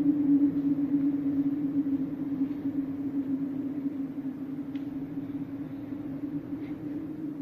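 A steady low hum, holding one pitch and slowly fading.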